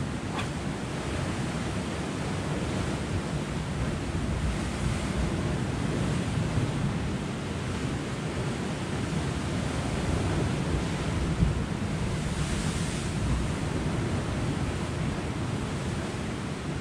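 Sea surf washing against a rocky shore, with wind buffeting the microphone. A wave surges a little louder and hissier about twelve seconds in.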